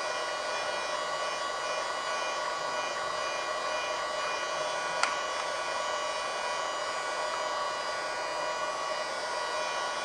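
Portable USB mini vacuum cleaner running steadily, a motor whine with several steady tones and a rush of air, as its nozzle sucks dust from between keyboard keys. A single sharp click about halfway through.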